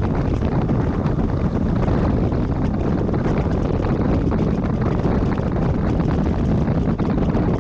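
Steady wind buffeting the microphone, with a heavy low rumble underneath.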